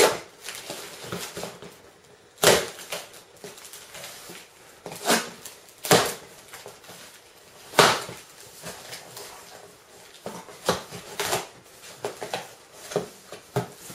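A cardboard box being torn open by hand: packing tape ripping along the seam and cardboard flaps tearing back. There are several short sharp rips a second or two apart, with softer rustling and handling between them.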